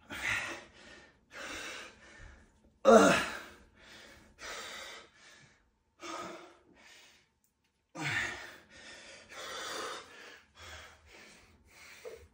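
A man gasping and breathing hard in irregular breaths as he recovers from a hard set of heavy banded deadlifts, the loudest gasp about three seconds in.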